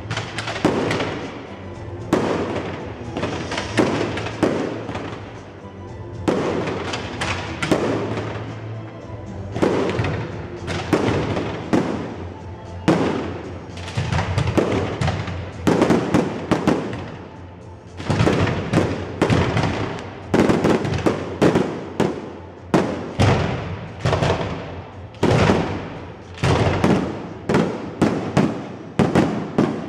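Aerial fireworks display: a steady run of sharp bangs from shells bursting overhead, roughly one to two a second, each trailing off briefly, coming faster and closer together in the last third.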